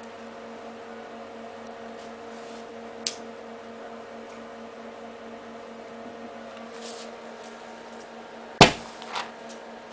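Soap foam filled with pure hydrogen (no oxygen mixed in) ignites near the end with one sharp bang, followed by a smaller pop about half a second later. Earlier, a lighter clicks about three seconds in, under a steady hum.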